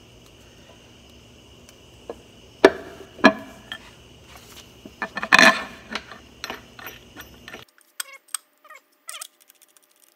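Sharp metallic clinks and knocks as the bolts for a tractor's cast-iron brake cover are handled and started into the rear axle housing: two single hits, a dense clatter about five seconds in, then lighter ticks.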